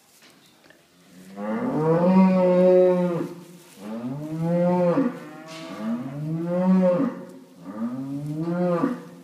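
Holstein cow in labour mooing four times, long moos that each rise and then fall in pitch, the first the longest. They come during an assisted calving, while the calf is pulled out by ropes on its front legs.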